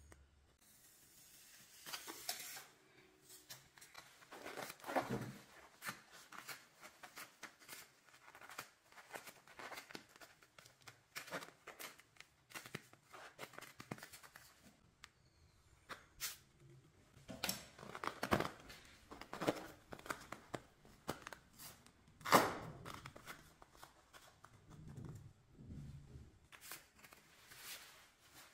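Thin plastic wrapping crinkling and tearing as hands open small packets of coloured sand, with irregular light clicks and taps from handling clear plastic ball halves. A sharp click about three-quarters of the way through is the loudest sound.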